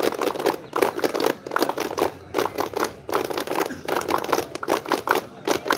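Hand clapping: a quick, uneven run of sharp claps, several a second.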